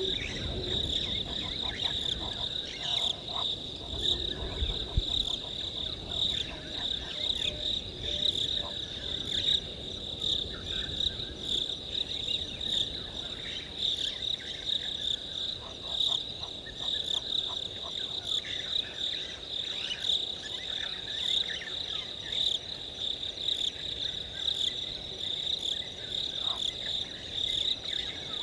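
Night insect chorus: a continuous high-pitched trill, with faint scattered calls beneath it.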